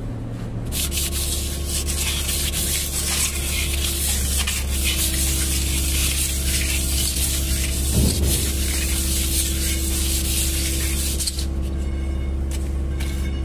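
A long, steady hiss of a jet aimed at the exposed flywheel of an Isuzu 4HK1 truck engine as it is cleaned. The hiss starts about a second in and cuts off near the end, over a steady low hum.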